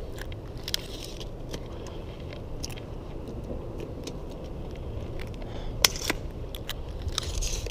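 Close handling noises as a caught fish and a tape measure are handled: scattered clicks and rustles, with one sharp click about six seconds in and a short rattle near the end, over a low steady rumble.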